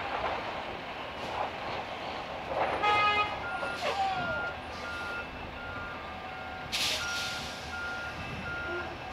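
Trucks passing over a railroad grade crossing. From about three seconds in, an electronic warning tone beeps steadily about twice a second. A short horn toot comes just before the beeping starts, a brief squeal about a second later, and a hiss of air a little before seven seconds.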